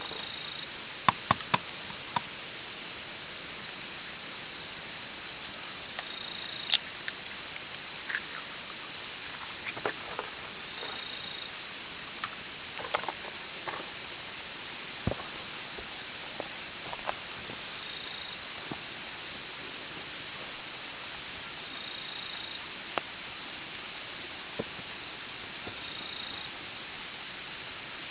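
Night insects trilling in a steady high continuous tone, with a second, slightly lower call repeating in short pieces every few seconds. Occasional sharp pops and crackles from a wood campfire, a cluster about a second in and one louder pop about seven seconds in.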